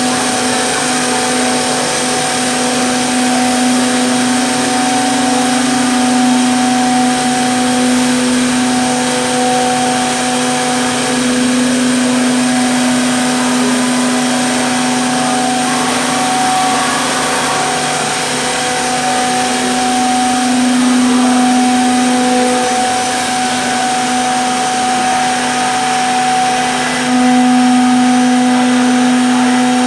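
Three-head CNC mortising machine (Zhan Fei SDC-1500) running, its spindle motors giving a steady hum with a thin high whine over it. The sound swells louder a few times, most near the end, as the spindles cut mortises in wooden parts.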